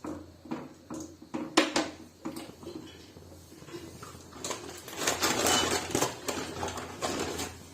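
A few short knocks and clinks of a utensil against a metal pan, followed by a stretch of rustling about halfway through.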